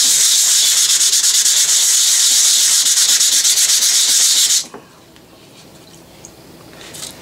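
Coarse abrasive pad scrubbed rapidly back and forth over a hollow mandrel to strip the black coating left by electrolytic rust removal: a loud, scratchy hiss of quick strokes that stops abruptly a little past halfway.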